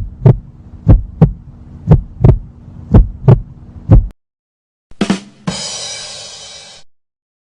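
Heartbeat sound effect: a double lub-dub thump about once a second, four and a half beats in all. After a short gap comes a different effect: two quick hits, then a hiss that fades out.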